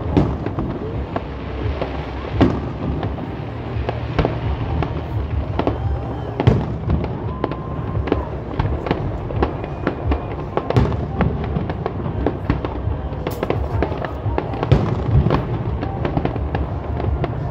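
Fireworks display: a rapid string of bangs from bursting shells with crackling in between. The loudest reports come about two and a half, six and a half and fifteen seconds in.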